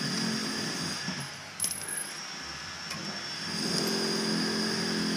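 Light metallic clinks as the nut of a braided stainless toilet supply line is worked onto a chrome angle stop valve by hand, with one sharper click about a second and a half in. A steady low hum comes in a little past halfway.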